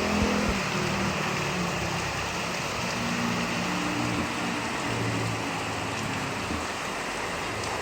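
Steady heavy rain falling, an even hiss with a few sharp drips near the start, over a low hum that wavers in pitch.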